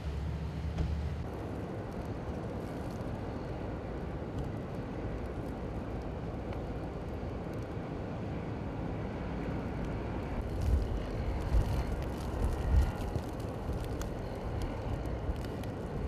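Strong blizzard wind blowing steadily, with a few heavy gusts buffeting the microphone about two-thirds of the way through.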